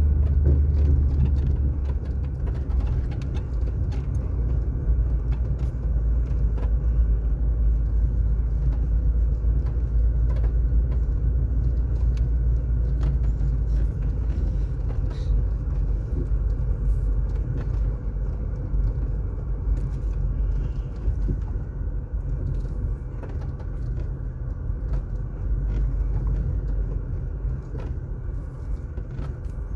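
Car driving at steady speed, its tyres and engine giving a continuous low road rumble, with scattered faint clicks; the rumble eases slightly in the second half.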